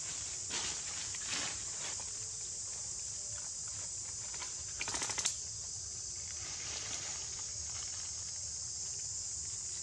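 Dry fallen leaves crackling and rustling in short bursts, with the loudest cluster about five seconds in, over a steady high hiss.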